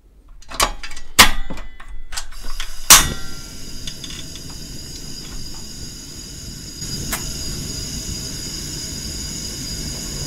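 Portable butane cassette stove being lit: a few sharp clicks from turning the ignition knob, the loudest about three seconds in, then the gas burner's flame hissing steadily.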